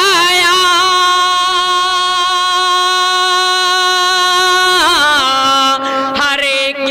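A man singing a naat solo into a stage microphone, holding one long wavering note for about five seconds, then dropping to a lower held note.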